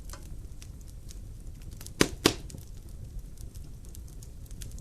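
Wood fire crackling in a fireplace: a steady scatter of small crackles over a low rumble, with two louder pops about two seconds in.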